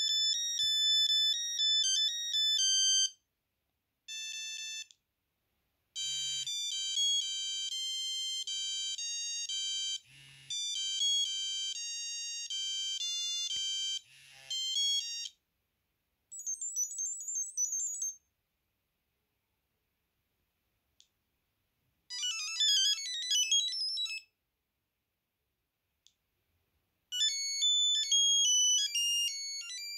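Sony Ericsson T68i mobile phone playing its built-in ringtones one after another: several short, high, beeping electronic melodies, each a few seconds long, with brief silences between them as the next tone is selected.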